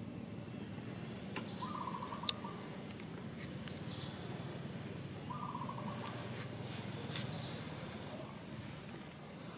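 An animal's short, rapidly pulsed trilling call, heard twice about three and a half seconds apart, over a steady low background hum.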